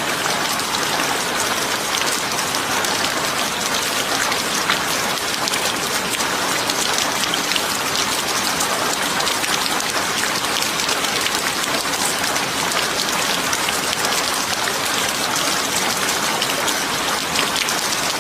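Steady rain, a dense patter of many small drop ticks over an even hiss.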